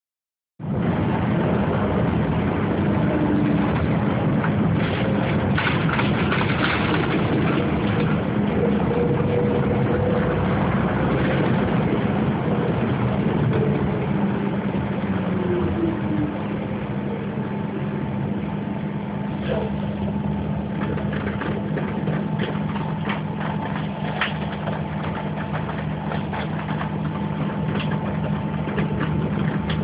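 Inside a city bus: the engine and drivetrain run with a steady low hum under road noise, with scattered rattles and knocks from the cabin. A thin steady whine comes in more plainly about halfway through.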